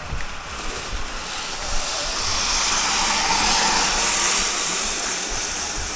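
A broad rushing hiss that swells to its loudest about three to four seconds in, then eases off.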